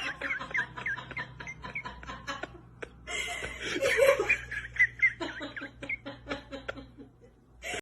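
A person laughing in quick snickering bursts, in two spells, trailing off near the end.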